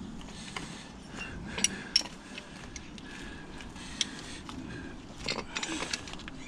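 Scattered metallic clicks and clinks of a wrench and a bolted steel tow-hook bracket being handled, with small scraping and handling noise between them.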